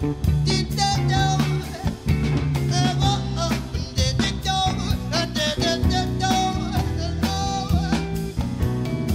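Live band playing: a high, wavering vocal line without clear words sung over electric guitar, bass, drum kit and hand percussion.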